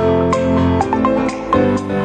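Background music: keyboard instruments over a steady beat, with notes struck about twice a second.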